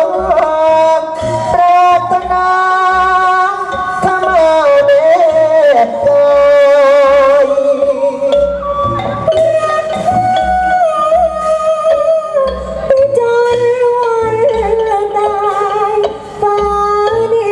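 Likay theatre music: a wavering, sliding melody line over a regular low drum beat of about two beats a second.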